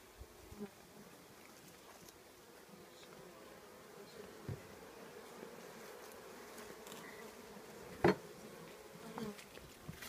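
Honeybees humming steadily in an open hive, with a sharp knock about eight seconds in and a fainter one about halfway through.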